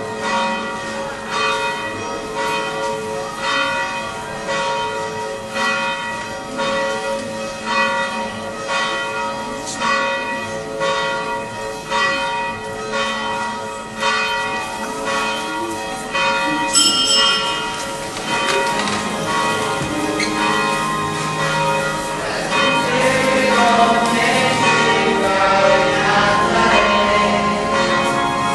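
Church bells ringing in a steady run of repeated strokes. About two-thirds of the way through, voices begin singing and grow louder over the bells.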